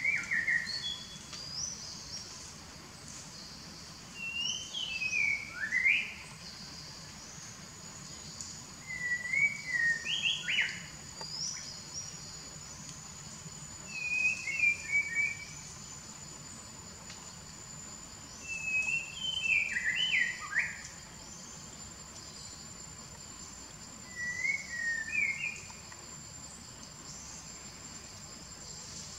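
A songbird repeats a short phrase of a few quick notes sweeping up and down, six times, about every five seconds. A steady high insect drone runs underneath.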